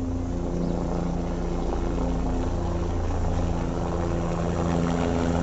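Helicopter running on the helipad: a steady engine and rotor drone with several held low tones.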